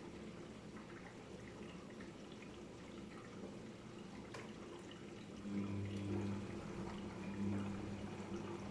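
Daewoo DWD-FT1013 front-loading washing machine with water sloshing and pouring inside it, typical of a rinse stage. A louder motor hum comes in about halfway through and swells and eases.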